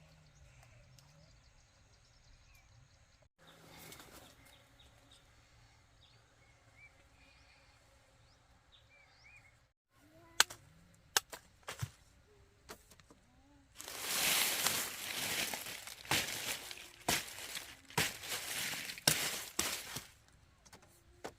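Dry plant stalks and leaves being handled: a few sharp snaps, then from a little past the middle several seconds of dense rustling and crunching. In the quieter first half, faint bird chirps can be heard over a still outdoor background.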